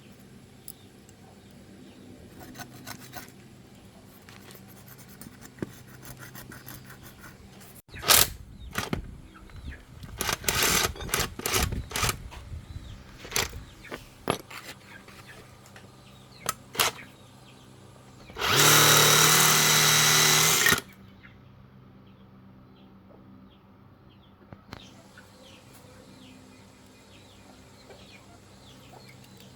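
Scattered knocks and clatter of tools on metal, then a power tool runs steadily for about two seconds, two-thirds of the way through.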